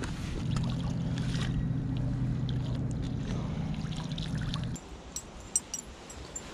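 A steady low mechanical hum, like a motor running, that cuts off abruptly after about four and a half seconds. Then, as a lure is cast, a few sharp light clicks.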